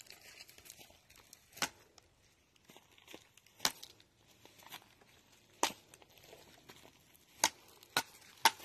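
A series of sharp wooden knocks, a stick striking wood: about every two seconds at first, then three in quick succession near the end, with a faint rustle of dry brush between them.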